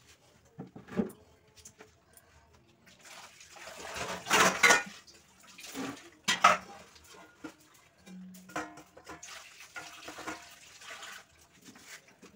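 Steel cookware handled on a gas stove: a steel bowl set down over a cake dish as a lid, with a few sharp metal clinks among stretches of hissing, rustling noise.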